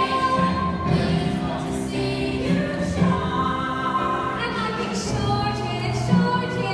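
Musical-theatre song: voices singing held notes over accompaniment.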